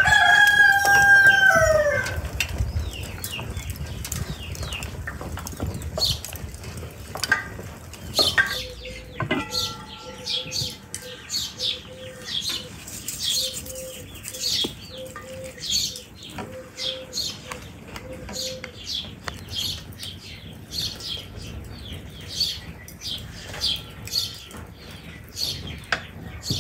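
A rooster crows once, a loud long call that falls in pitch. Small birds then chirp steadily, with a short low note repeated over and over for about ten seconds in the middle and a few knocks near the start of that stretch.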